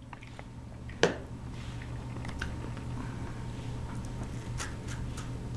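A young child biting and chewing a cookie: small crunching clicks, with one sharp knock about a second in, over a steady low hum.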